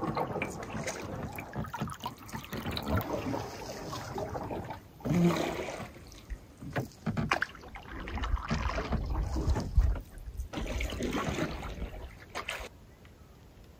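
Canoe paddling in calm lake water: swells of splashing and trickling every couple of seconds as the paddle dips and water runs off it. The paddling stops near the end.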